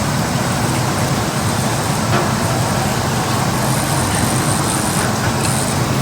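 Steady, loud rushing and rumbling machine-room noise, with a faint tick about two seconds in.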